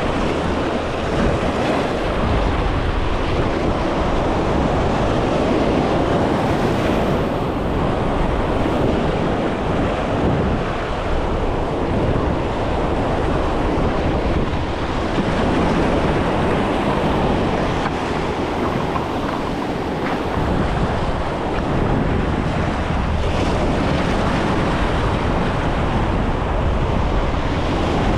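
Surf washing against jetty rocks, with wind blowing across the microphone.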